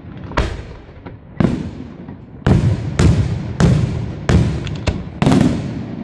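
Aerial firework shells bursting overhead in quick, irregular succession: about eight sharp bangs over six seconds, each trailing off in a rolling echo.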